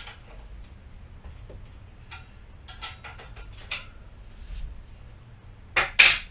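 Scattered metallic clicks and clinks of hand tools at work on a bicycle's handlebar and stem bolts, with a quick run of ticks about three seconds in and two louder knocks near the end.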